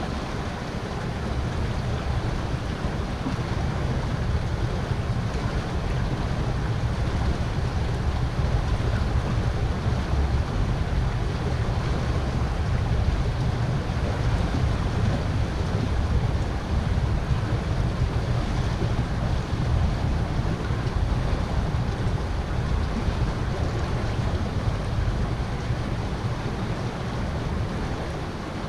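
Steady rush of river water flowing past the bank, with a fluctuating low rumble of wind on the microphone.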